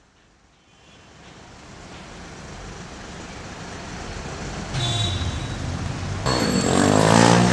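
City street traffic fading up from near silence and growing steadily louder. A vehicle engine passes close near the end, its pitch falling as it goes by.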